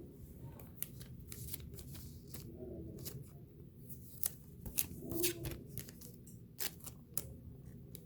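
Trading cards being handled and flipped through by hand, an irregular series of sharp clicks and snaps as card edges strike each other.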